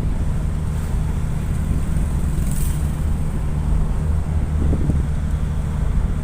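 Nissan Urvan's ZD30 four-cylinder diesel engine running with a steady low rumble, with its engine block assembly replaced.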